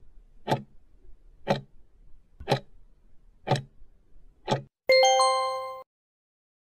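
Countdown-timer sound effect: five clock ticks, one per second, then a loud bell chime of several tones held for about a second before it cuts off, marking the end of the answer time.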